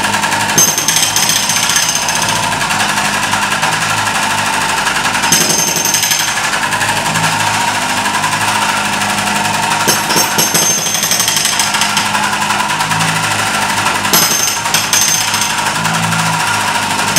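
Hydraulic breaker on a MultiOne 5.3 mini loader's arm hammering rapidly and continuously into a tiled floor, breaking it up.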